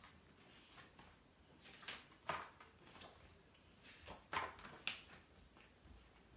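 Pages of a paperback picture book being turned by hand: a few short, soft paper rustles and flicks, about two seconds in and again around four to five seconds in, over quiet room tone.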